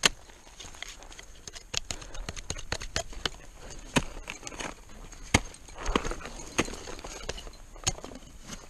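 Ice axes and crampons biting into steep snow and ice: irregular sharp thuds and crunches as the tools are swung in and the boots kicked, the loudest strikes about four, five and a half and eight seconds in.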